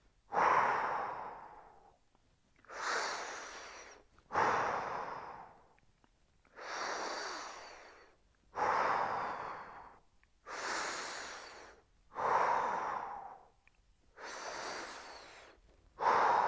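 A man breathing slowly and deeply while holding a standing side-bend stretch: five full breaths, a rush of air about every two seconds, each starting sharply and fading out.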